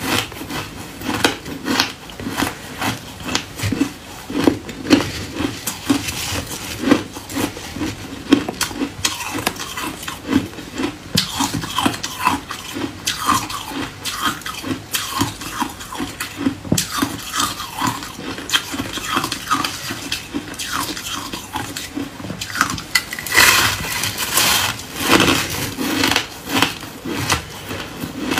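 Compacted shaved ice being bitten and chewed close to the microphone: an irregular run of crisp crunches, several a second, with a louder, denser stretch of crunching near the end.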